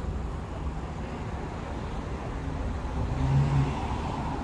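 A motor vehicle's engine running with a steady low rumble, a low hum growing stronger about three seconds in.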